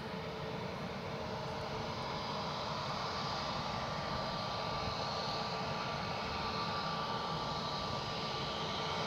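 Jet airliner's engines running with a steady whine over a broad rush, growing slowly louder.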